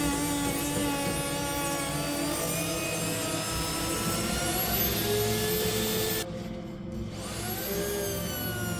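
Wood router running on a router sled, flattening an oak slab, a steady high whine whose pitch drifts slightly as it cuts. About six seconds in the sound briefly dulls and then rises back up.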